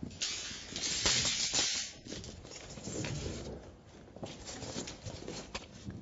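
Expanded polystyrene ICF foam blocks being handled and set: a loud hissing scrape for about the first two seconds, then quieter knocks and rustling.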